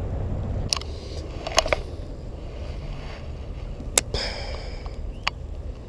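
A handful of sharp clicks from a baitcasting reel being handled. The loudest comes about four seconds in and is followed by a short hiss. Under them runs a steady low rumble.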